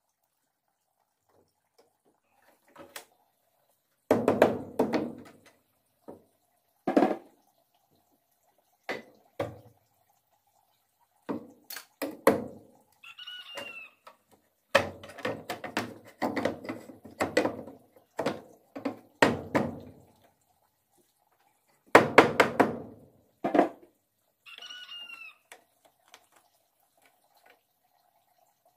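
Hammer driving nails into a wooden door frame, in bursts of quick blows with pauses between. A rooster crows twice, about halfway through and again late on.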